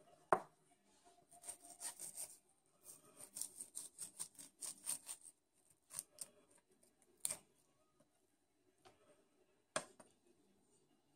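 Knife skinning a rockfish fillet on a wooden cutting board: runs of quick scraping strokes as the blade works between skin and flesh, with a few sharp knocks of the knife on the board.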